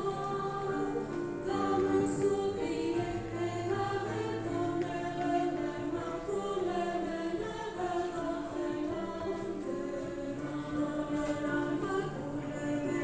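A choir singing in several parts, holding long chords that shift together from one to the next.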